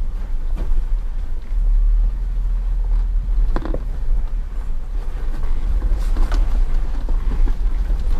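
An off-road vehicle crawls over a rocky dirt trail, giving a steady low rumble. Several knocks and rattles from the rough ground come through it, the clearest about halfway and again a few seconds later.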